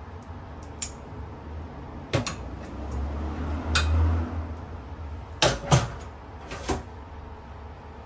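Kitchen tongs clicking against a plate as grilled sausages are moved onto it, then the plate and tongs set down on the counter with a few sharp knocks, the loudest about five and a half seconds in. A steady low hum runs underneath.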